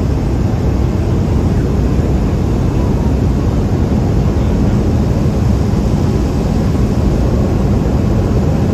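Cabin noise inside a Cessna 208 Caravan on approach to land: its Pratt & Whitney PT6A turboprop engine and propeller running steadily, a low hum under a constant wash of noise.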